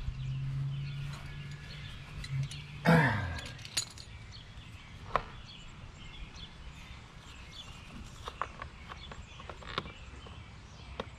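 Scattered sharp metal clicks and taps of a wrench on the regulator-rectifier mounting bolts, with birds chirping faintly. About three seconds in, a low hum slides down in pitch and stops with a louder clatter.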